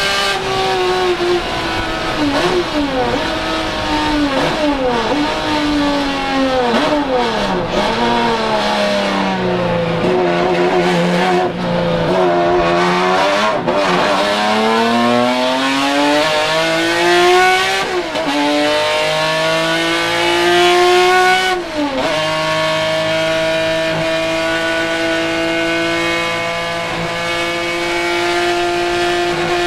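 Naturally aspirated Ford-Cosworth GAA V6 of a Ford Capri RS 3100 touring car at racing speed, heard from inside the cockpit. It starts high and steady, drops through several downshifts with throttle blips under braking, pulls at low revs through a slow corner, then climbs hard with two upshifts, about eighteen and twenty-two seconds in, to a steady high-rev run.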